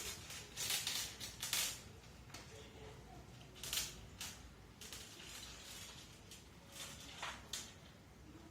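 Scattered short scrapes and clicks of fan parts being handled during a repair: a cluster in the first two seconds, one near four seconds and another pair near the end.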